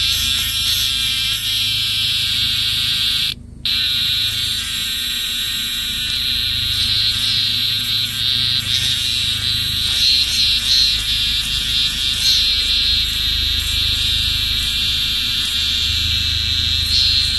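Cicada buzzing: a steady, high-pitched drone with a flickering texture, cutting out briefly about three and a half seconds in.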